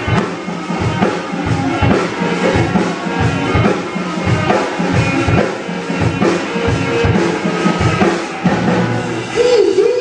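Amateur rock band playing live: a drum kit keeps a steady beat of bass drum and cymbals under electric guitars and bass.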